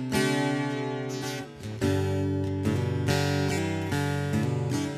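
Background music: chords strummed on an acoustic guitar.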